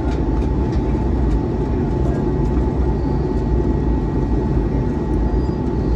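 Steady cabin noise inside an Airbus A321 in flight: the low rumble of the jet engines and rushing air, with a faint steady whine above it.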